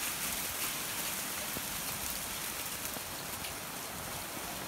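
Heavy thunderstorm rain falling steadily, an even hiss of drops on the ground and surfaces.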